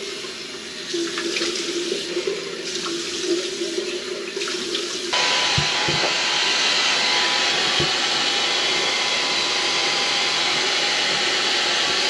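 Water running from a bathroom tap into a sink. About five seconds in, a handheld hair dryer switches on suddenly and runs with a steady hiss and a thin whine.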